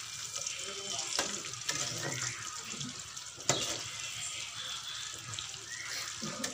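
Chopped shallots, chillies and garlic sizzling steadily in hot oil in a wok, with the scrape and clack of a slotted metal spatula stirring against the pan. A couple of sharp clacks stand out, the loudest about three and a half seconds in.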